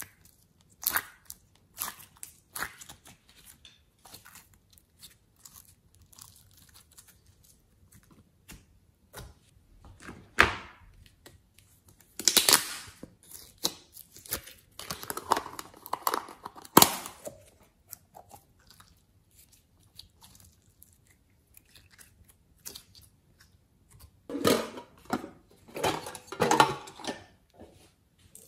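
Soft modelling clay being squeezed and peeled out of thin plastic tubs, with the plastic crinkling and clicking and the clay squishing, in irregular bursts. The loudest clusters come about halfway through and near the end.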